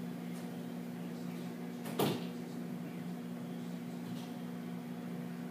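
A steady low hum with a single sharp knock about two seconds in.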